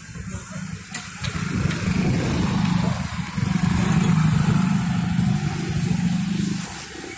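Small automatic motor scooter carrying two riders pulling away and riding past, its engine running, growing louder as it passes and falling away as it rides off near the end.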